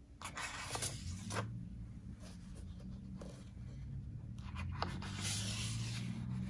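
Pages of a large hardcover photo book being turned and smoothed down by hand: a few short paper rustles and light flaps, then a longer sliding swish about five seconds in. A low steady hum runs underneath.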